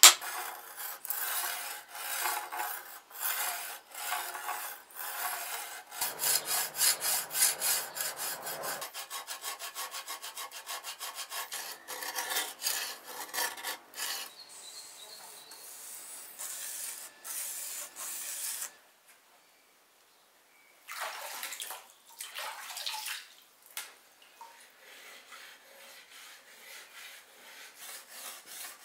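Hand tool rasping along a steel sabre blade in repeated strokes, quicker for a few seconds, then a short silence about two-thirds through and fainter rubbing strokes near the end.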